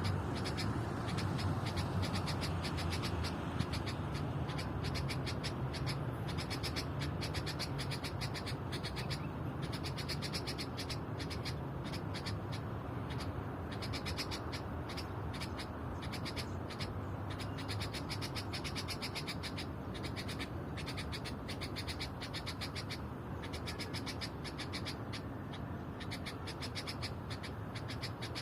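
A black songbird singing in bursts of several seconds of rapid, clicking, chattering notes with short pauses between, over a steady low background rumble.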